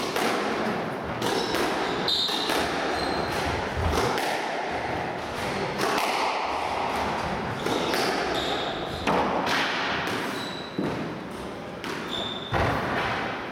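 Squash rally: the ball striking rackets and smacking against the walls of the court, many sharp hits in an irregular rhythm, with shoes squeaking briefly on the wooden court floor.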